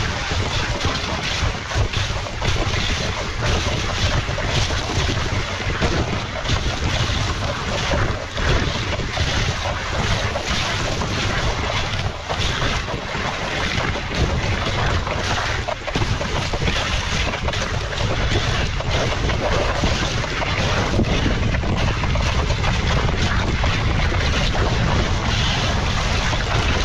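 Dogsled runners hissing and scraping over a snowy trail, with wind rumbling on the microphone and frequent knocks as the sled jolts over the track.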